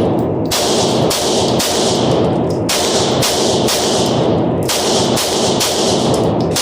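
Handgun shots fired in quick succession, about two a second, each sharp crack followed by a short ringing tail.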